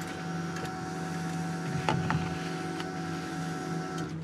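Small electric motor humming with a steady whine after the car's ignition is switched on; the whine cuts off sharply about four seconds in. A faint click about two seconds in.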